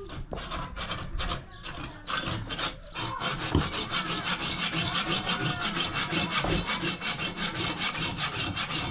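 Rapid rhythmic rasping strokes, like sawing or scraping on wood. They come irregularly at first, then settle into a steady run of about five strokes a second from about three seconds in.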